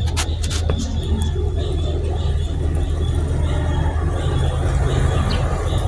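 Steady low rumble of a motor vehicle running, with a few sharp clicks in the first second and a faint high whine over it.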